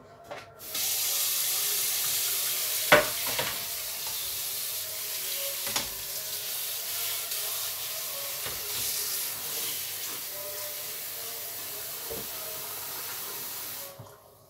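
Kitchen tap running into a stainless steel sink while things are rinsed under it, turned on about a second in and shut off near the end. A few sharp knocks sound over the water, the loudest about three seconds in and another a few seconds later.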